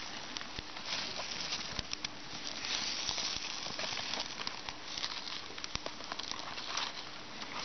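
Birch bark crackling and rustling as hands tear it and lay it onto a campfire, with many small snaps over a steady hiss.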